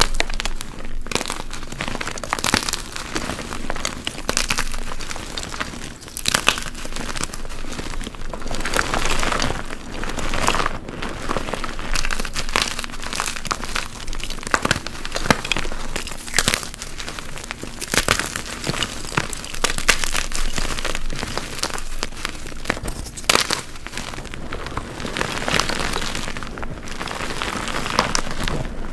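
Blocks of dyed gym chalk being crushed, crunching and crumbling into powder in a steady run of irregular crunches, some sharper and louder than the rest.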